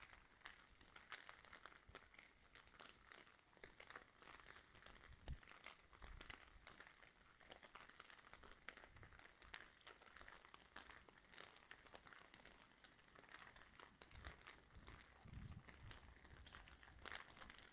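Near silence, with faint crackles, scuffs and a few soft thumps from someone walking with the phone.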